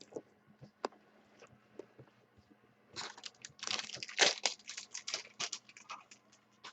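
Plastic card packaging crinkling and crackling as it is handled. A few light clicks come first, then a dense run of crackles from about three to six seconds in.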